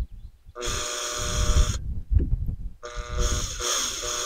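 Makita cordless drill boring a 3 mm hole through a kayak's polyethylene hull, its motor whining in bursts on the trigger: it starts about half a second in, stops for about a second in the middle, then runs again to finish the hole.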